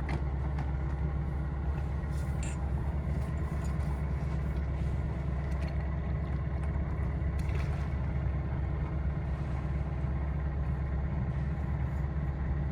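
Sailboat's engine running steadily under power, a constant low hum.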